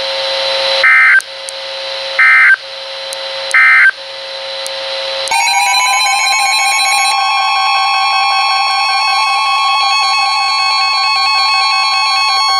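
Weather radio alert signals: three short data bursts of EAS/SAME code about a second and a half apart, over a steady lower tone, marking the end of the tornado watch broadcast. About five seconds in, a loud steady alert tone near 1 kHz starts with a brief upward slide and holds, with pulsing alarm tones above it: the NOAA Weather Radio warning alarm announcing the next warning.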